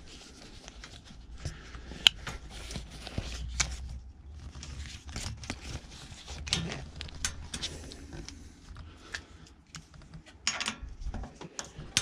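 Hex key turning and being repositioned in the bolts of a bicycle pannier rack while they are tightened: irregular small metallic clicks and scrapes, with one sharp click about two seconds in.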